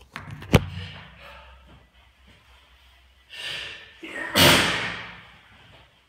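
A heavy door slams shut about half a second in. A few seconds later a man sneezes: a short breathy "ah" and then a loud, unrestrained sneeze that is the loudest sound of the stretch.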